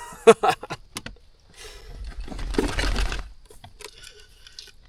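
Handling noise: several light clicks and knocks, then about a second and a half of rustling with a low rumble, and a few faint clicks near the end.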